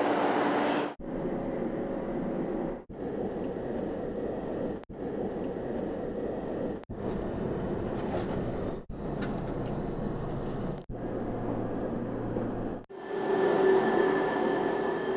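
A string of short clips of KTX high-speed train sounds, cut every two seconds or so. Each clip is a steady hum and rumble of the train and station. In the last, loudest clip a KTX train runs past along the platform.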